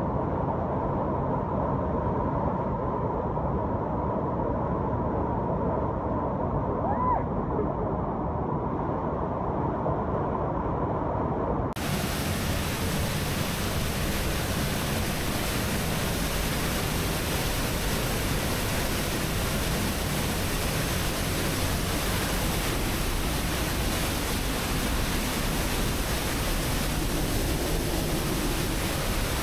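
Steady rush of a waterfall. About twelve seconds in the sound switches abruptly from a duller rush to a brighter, fuller one.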